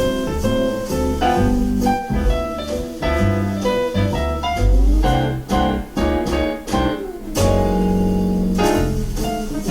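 Instrumental jazz led by piano over a walking bass and drums, played back through powered speakers and recorded binaurally in the room.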